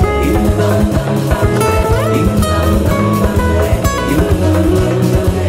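Instrumental pop-rock band music with no singing: a guitar melody over bass and drum kit, with one note bending upward about two seconds in.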